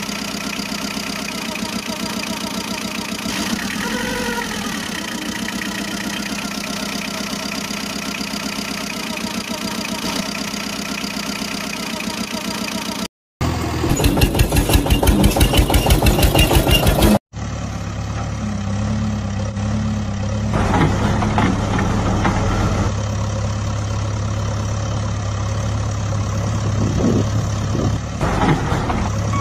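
Vehicle engine sounds in three spliced pieces: a steady idling engine, then a few seconds of a louder engine pulsing at about four beats a second, then another steady idling engine with a deeper hum.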